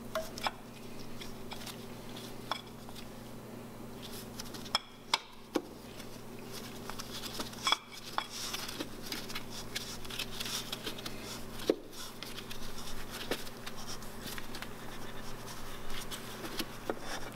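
Nissan 300ZX fan-clutch pulley being worked off its studs by hand, a bit at a time: scattered scrapes and light metal clicks with a few sharp clinks. A steady low hum runs underneath.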